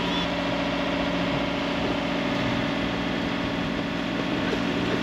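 Sailboat's inboard engine running steadily at constant revs while motoring, an even hum that holds one pitch.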